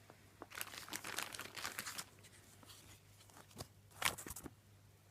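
Crinkly packaging being handled, in two bouts of crackling and rustling with a pause between.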